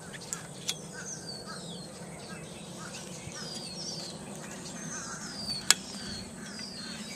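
A single sharp snap about five and a half seconds in, as a plastic sail clip is snapped shut around the aluminium spar, with a couple of fainter clicks near the start. A bird sings short falling whistles over and over in the background.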